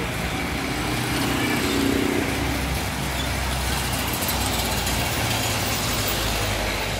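Engine noise of motor vehicles passing close by on a street: a motorcycle with a sidecar and then a classic American car drive past.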